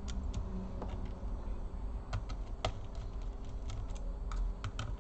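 Irregular light clicks and taps of small tools and parts being handled on an opened laptop during reassembly, more frequent in the second half, over a steady low hum.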